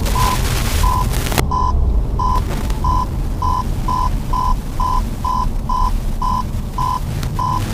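Lada Vesta's warning beeper sounding a short beep over and over, about every half second, quickening in the middle and slowing again near the end; the changing rate fits parking sensors reacting to a nearby obstacle or snow. A steady low rumble from the car runs underneath.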